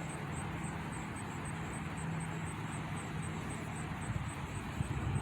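A steady low engine drone in the distance, with irregular low bumps of wind on the microphone from about four seconds in.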